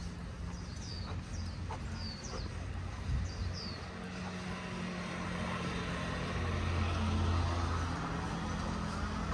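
Street traffic with a vehicle passing, its noise building to a peak about seven seconds in and then easing, over a steady low hum. Several short, falling bird chirps and a few light footstep taps in the first three or four seconds.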